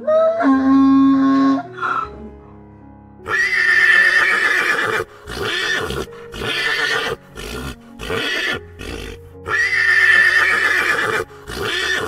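A run of loud, harsh animal calls, several in a row with short breaks between them, over soft background music; a short pitched musical phrase plays just before the calls begin.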